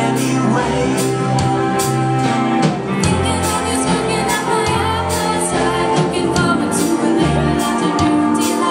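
Live rock band playing a pop-rock song, with drum kit hits, a bass line and young girls singing into microphones.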